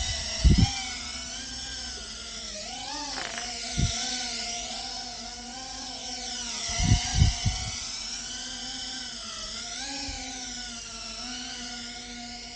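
GEPRC Phantom quadcopter's brushless motors whining, the pitch rising and falling with the throttle as it flies. Several dull thumps cut through it, the loudest a quick cluster about seven seconds in.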